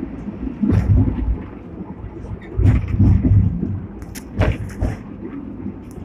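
Sixth-generation Hong Kong double-decker tram running along its street track, heard from the lower deck: a steady low rumble from the wheels and running gear, broken by knocks and rattles from the car every second or two.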